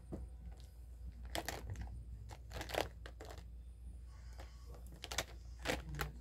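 Several short rustles and light clicks of hands handling things, spread unevenly through, over a low steady hum.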